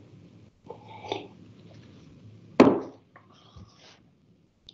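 Quiet background with faint indistinct sounds, and one short, sharp noise about two and a half seconds in that fades quickly.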